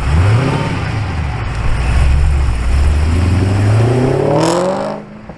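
Car engine revving: a quick blip at the start, then accelerating with the pitch rising steadily for about three seconds before cutting off suddenly near the end.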